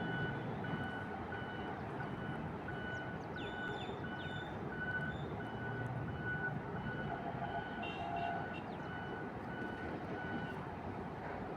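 A vehicle's reversing alarm beeping at an even pace, about two beeps a second, over a steady low rumble, stopping shortly before the end. A few short, quick bird chirps come through in the middle.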